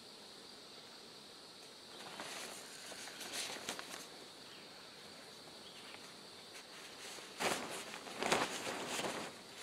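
Basha tarp rustling and crinkling as sticks are slid up under it to prop the sagging roof, in two spells: a short one about two seconds in and a louder one near the end. Insects drone steadily underneath.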